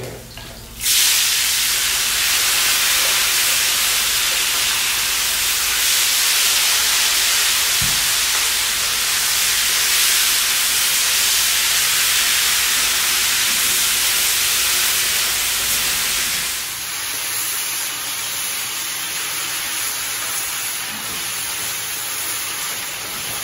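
Sliced bell peppers and onions, carrying some moisture, dumped into hot grapeseed oil in a steel discada: a loud sizzle that starts suddenly about a second in and goes on as a steady hiss of frying. It drops a little in level after about sixteen seconds.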